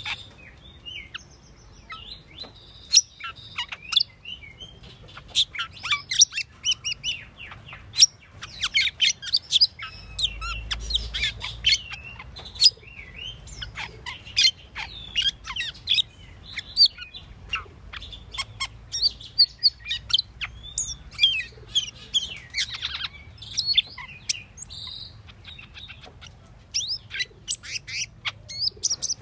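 Asian glossy starling (Aplonis panayensis) singing: a rapid, unbroken stream of short, sharp high chirps, clicks and quick whistled glides, growing busier about five seconds in.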